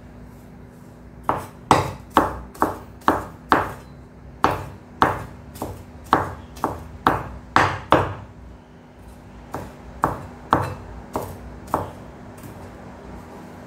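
Broad-bladed cleaver chopping peeled garlic cloves on a wooden chopping board: sharp knocks about two a second, a brief pause after about eight seconds, then a few slower strokes.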